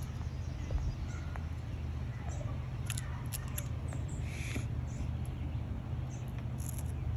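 A chipmunk nibbling and chewing watermelon: scattered small wet clicks and crunches over a steady low rumble.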